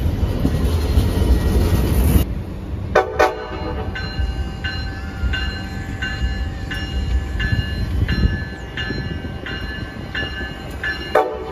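Amtrak ACS-64 electric locomotive sounding its horn: two short toots about three seconds in and a longer blast starting near the end. Between them a repeating two-note chime alternates about every 0.7 s, over a low train rumble. A heavier low rumble of passenger cars fills the first two seconds.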